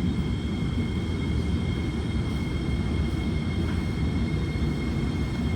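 Alstom R151 metro train running with a steady low rumble and two faint, steady high-pitched tones above it.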